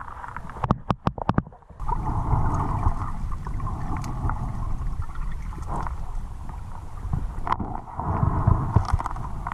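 Muffled rush of fast-flowing river water heard through an underwater camera housing, with a few sharp clicks about a second in, after which the rushing grows louder.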